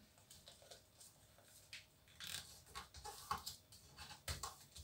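Faint rustling and soft irregular taps of glossy catalogue paper being pressed and smoothed flat by hand.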